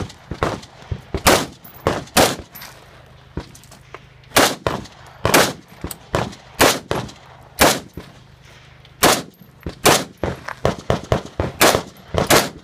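Semi-automatic rifle firing about fifteen sharp, loud shots in irregular pairs and short strings with brief pauses between them, with fainter cracks in the gaps.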